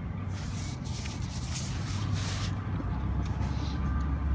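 Rustling of a mesh-sided fabric pet carrier being handled close to the microphone, in several hissy bursts during the first couple of seconds, over a steady low rumble.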